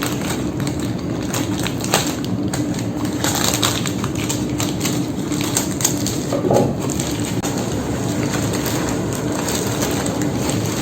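A cardboard shipping box being torn open and its packaging handled: irregular crackles, clicks and tearing of cardboard and tape over a steady background hum.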